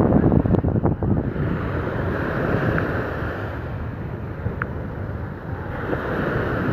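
Small sea waves breaking and washing up a sandy beach, the foamy wash hissing as it surges in and out. Wind buffets the phone microphone, hardest in the first second or so.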